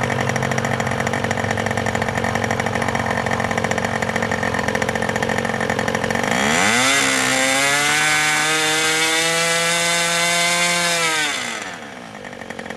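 HP 61 two-stroke nitro model airplane engine running at low throttle, then opened up about six seconds in: the pitch climbs steeply with a little hesitation, holds high and steady, and drops back to idle near the end. The throttle transition is a little on the rich side.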